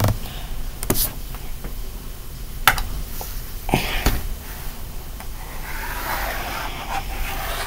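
A few sharp taps on a tablet touchscreen, then from about two-thirds of the way through, a scratchy rubbing of brush strokes being drawn across the screen.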